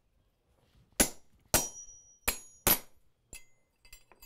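Hammer blows on a hand punch, cold-punching a nail hole through a small steel drawer pull set on a bolster on the anvil: four hard, ringing strikes starting about a second in, then a couple of lighter taps.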